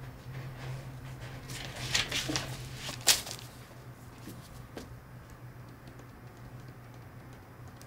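Paper rustling and soft handling noises as a spiral notebook's pages are touched and moved, with a sharp tap about three seconds in, over a steady low hum.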